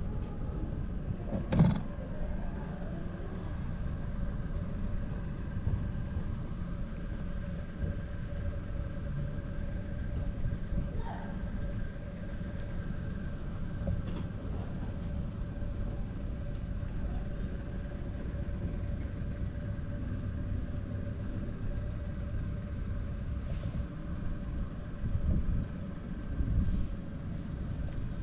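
Vehicle engine running steadily with a low rumble and a constant hum, and a sharp knock about a second and a half in.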